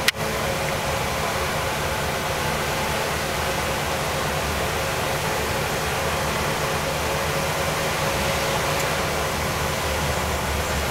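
Heavy truck's engine running steadily with road and tyre noise, as heard inside the cab of a tractor-trailer on the move. A single sharp click at the very start.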